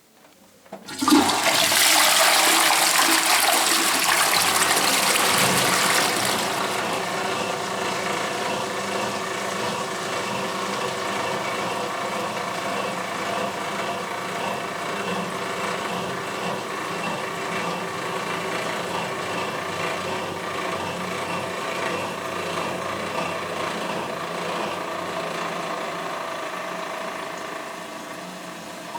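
Toilet flushing: a click about a second in, then a loud rush of water for about five seconds, which settles into the steadier hiss and hum of the cistern refilling and eases off near the end.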